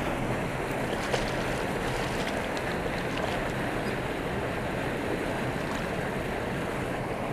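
Steady rush of water pouring out of a culvert spillway into the creek.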